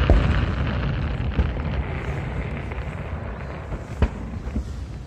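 Aerial fireworks exploding: a dense rumble of overlapping booms and crackle that fades over the first few seconds, then a single sharp bang about four seconds in.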